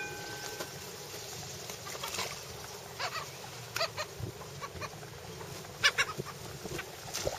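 A flock of gulls calling, with many short harsh calls in quick runs. The loudest burst comes about six seconds in.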